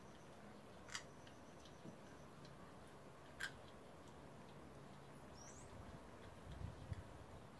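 German Shepherd puppy mouthing and chewing a piece of raw meat: mostly very faint, with two sharp clicks at about one second and three and a half seconds in, and low soft bumps near the end.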